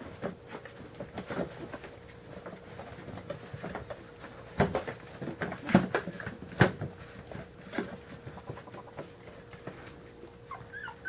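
Newborn Carolina Dog puppies whimpering while the mother dog noses and licks them, with scattered clicks and a few louder knocks from their movement about halfway through. Near the end the puppies break into a quick run of high, rising-and-falling squeaks.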